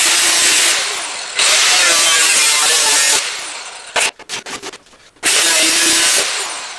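A power tool run in three bursts, each starting abruptly and trailing off after a second or two, with a few clicks between the second and third bursts.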